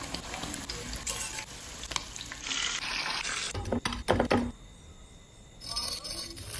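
Chicken frying in hot oil, sizzling steadily, with a cluster of sharp knocks about four seconds in and a fresh burst of sizzling near the end.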